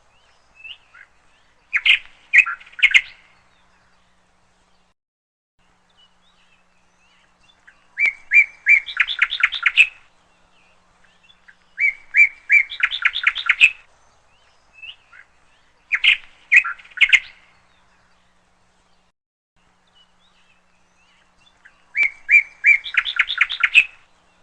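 A songbird singing five short, rapid trilled phrases of one to two seconds each, with pauses of a few seconds between them.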